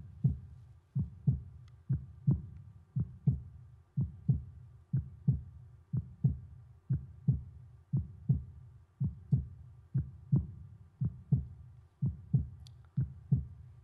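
Heartbeat sound effect: a steady double thump repeating about once a second.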